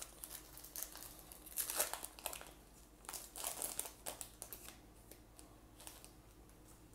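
Foil wrapper of a Topps baseball card pack being torn open and crinkled as it is peeled off the cards. The crackling comes in bursts, loudest about two seconds in and again around three to four seconds in, then dies away.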